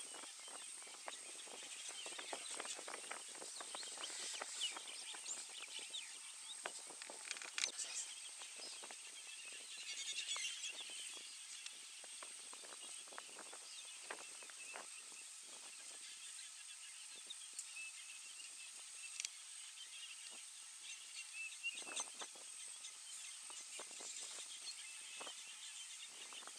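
Savanna bush ambience: birds chirping over a steady high hiss, with scattered faint crackles and snaps.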